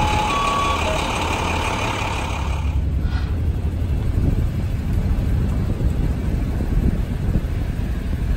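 Emergency vehicles idling with a steady high whine over a low rumble, and a few short electronic beeps near the start. About three seconds in, the sound cuts to the low rumble of a commuter train passing.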